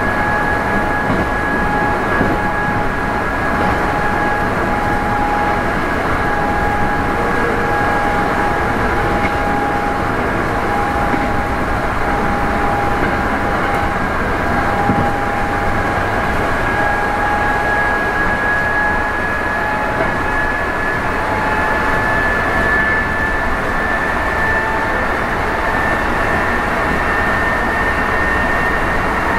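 Sanyo Electric Railway 5000 series electric train running at speed, heard aboard motor car Kumoha 5010. Its Mitsubishi MB-3020 traction motors whine steadily over the rumble of the wheels on the rails. The whine sags slightly mid-way, then climbs steadily in pitch through the second half as the train gathers speed.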